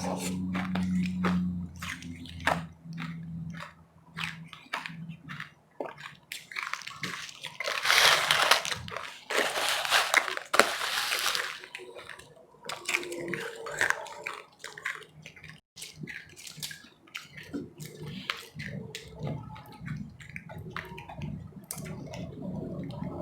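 Close-up crunching and chewing of powdery ice, with many sharp crackles and wet mouth sounds. About eight seconds in, a louder stretch of dense crackling lasts a few seconds.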